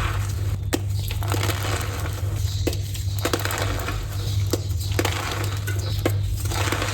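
Gym chalk (magnesium carbonate) being crushed and crumbled by hand, a steady crisp crunching with sharp cracks about once a second. A steady low hum runs underneath.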